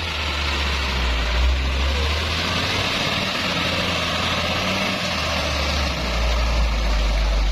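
Hino dump truck's diesel engine running as the truck pulls through mud and passes close by; the low engine rumble eases briefly about five seconds in and then picks up again.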